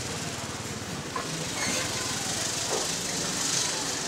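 Steady background din of a busy wet market, with faint distant voices over a low mechanical rumble.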